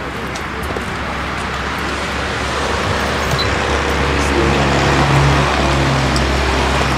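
A motor vehicle's engine running, growing gradually louder as it comes closer, with a steady low hum.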